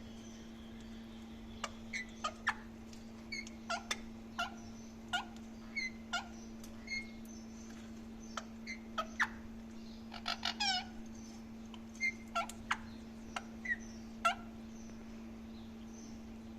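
Indian ringneck parrot making short, sharp chirps and clicks, some twenty scattered irregularly, each quickly falling in pitch, with a quick run of chirps about ten seconds in.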